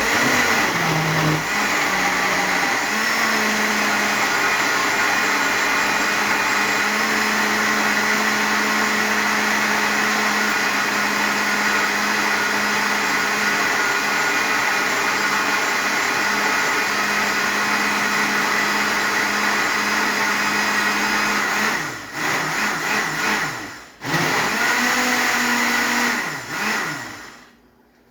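Electric kitchen blender puréeing red hot peppers with garlic, onion and vinegar into pepper sauce. It spins up and runs steadily, then near the end its sound dips and breaks up a few times, cuts out briefly, starts again and winds down.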